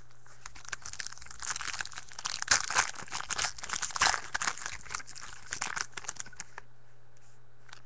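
A foil-wrapped baseball card pack being torn open and its wrapper crinkled, an irregular run of crackling and tearing that stops about a second before the end.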